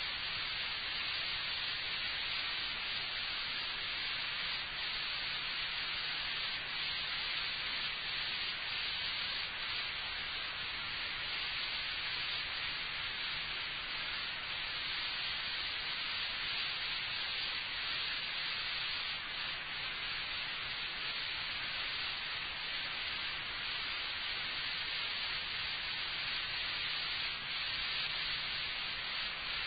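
Steady hiss of recording noise, strongest in the upper range, with a faint low hum underneath and no speech.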